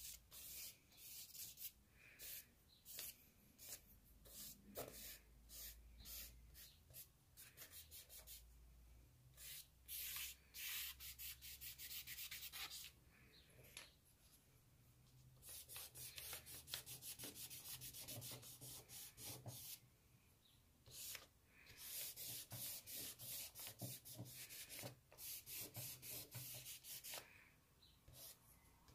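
Charcoal stick scratching and rubbing across sketchbook paper in quick, repeated strokes, with a few short pauses.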